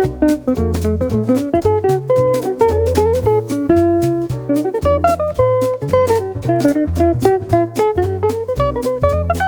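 Background music: an upbeat jazz tune with guitar, a walking bass line and a steady drum-kit beat.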